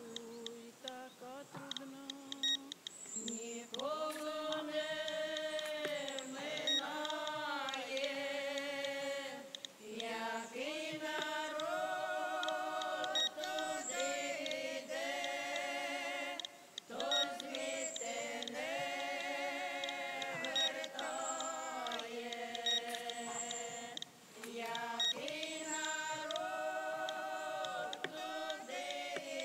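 Slow singing in long held notes with a light vibrato, in phrases of several seconds separated by short breaths.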